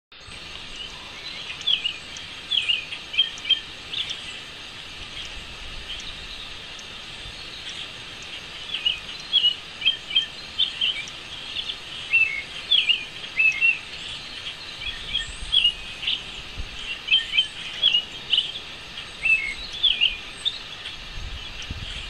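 Birds chirping: many short, high chirps in quick clusters, sparse for a few seconds after the first ones and then frequent, over a steady background noise.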